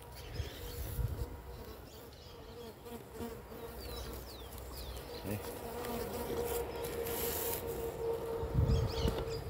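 A flying insect buzzing close to the microphone: one steady, even tone that grows louder through the second half. A low thump comes near the end.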